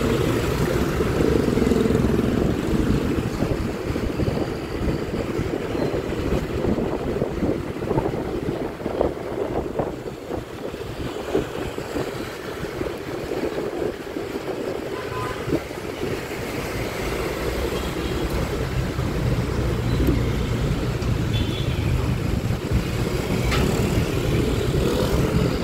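A Honda Click 125i scooter being ridden in city traffic: its small engine runs steadily under continuous road and wind rush.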